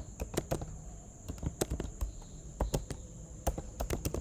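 Computer keyboard keys being typed, a quick irregular run of light key clicks.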